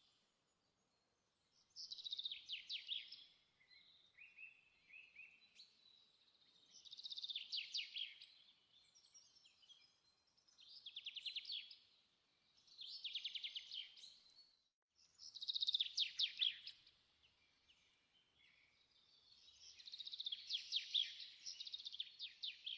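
Birds chirping: repeated phrases of rapid high chirps, each a second or two long, coming every few seconds.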